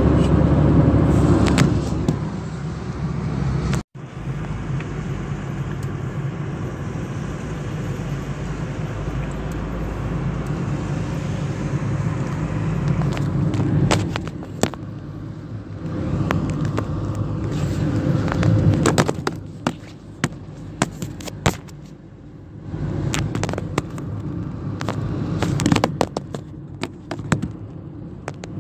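Car driving on a wet road: steady engine and road rumble, broken by an abrupt cut a few seconds in. In the second half a run of sharp clicks and knocks sounds over the rumble.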